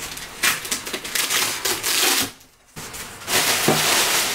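Cardboard shipping box being opened: a knife slitting the packing tape and the cardboard flaps scraping as they are pulled apart, a run of scratchy tearing and rubbing with a short pause about halfway through.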